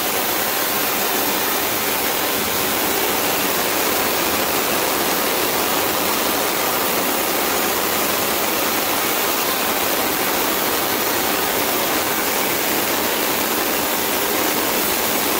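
Thermal spray gun firing continuously, a steady, even hiss of its flame jet as it sprays titanium over the zirconia thermal barrier coat on an exhaust manifold.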